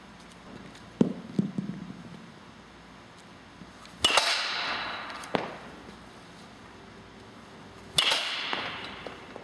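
Baseball bat hitting a ball twice, about four seconds apart. Each hit is a sharp crack that rings on for about a second, with a few softer knocks in between.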